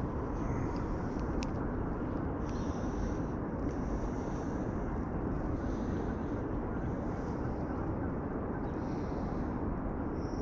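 Steady low rumbling outdoor background noise with no words, broken by a faint click about a second and a half in.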